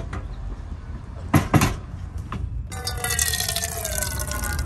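Water poured from a bottle into a small cooking pot, a steady splashing pour with gurgling tones that slowly fall in pitch as the bottle empties, starting a little over halfway through. Two sharp knocks of gear being handled come just before.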